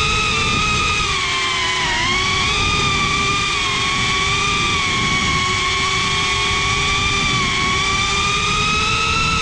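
FPV quadcopter's brushless motors and propellers whining as it flies, the pitch dipping about two seconds in and climbing back, over a rushing wash of wind and prop noise.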